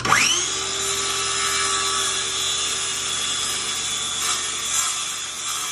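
Circular saw starting with a quick rising whine, then running steadily as it cuts through the wooden jamb of a pre-hung door, trimming half an inch off its bottom.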